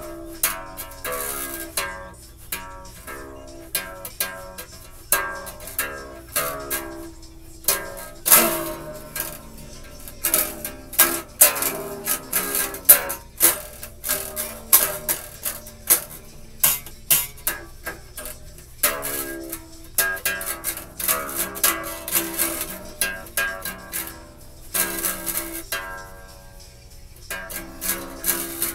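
Acoustic guitar played fingerstyle: single plucked notes and chords ring out one after another at an uneven pace, with a quieter stretch near the end.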